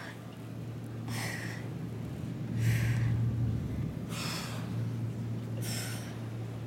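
A woman's short, forceful exhalations, one with each crunch, about every second and a half: four in all, over a steady low hum.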